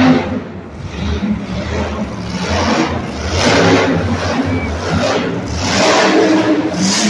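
Monster truck engines revving hard in repeated surges that rise and fall every second or two while the trucks drive on the dirt and climb a ramp.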